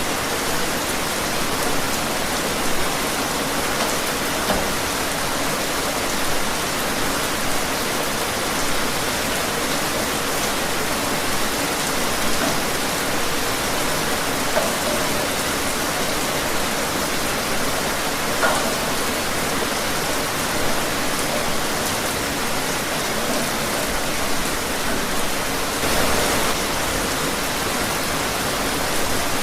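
Steady rain falling outdoors: an even hiss with a few slightly louder drops now and then.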